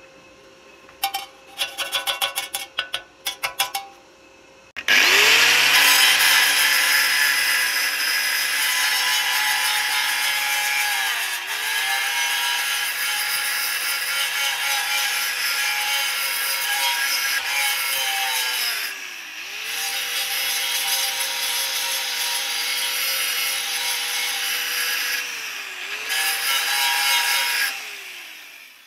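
A quick series of sharp taps, then an angle grinder spins up about five seconds in and grinds a weld down on a galvanized steel tube. Its pitch dips briefly three times, and it winds down near the end.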